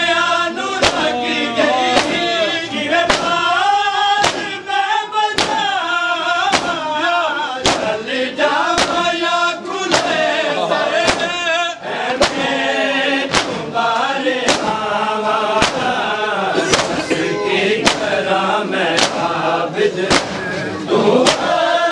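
A group of men chanting a noha (Muharram lament) together, with a sharp, rhythmic matam beat about once a second: the mourners' hands striking their chests in time with the chant.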